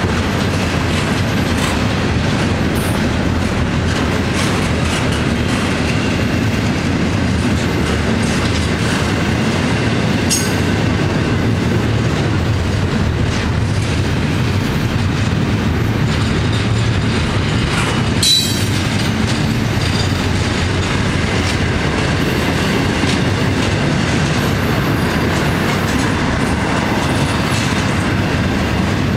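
Double-stack intermodal well cars of a long freight train rolling past close by: a steady rumble of steel wheels on the rails. There is one sharp knock about 18 seconds in.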